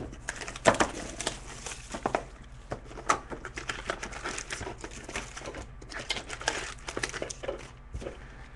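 Trading-card packs being crinkled, torn open and the cards handled: an irregular run of small crinkles, rips and clicks.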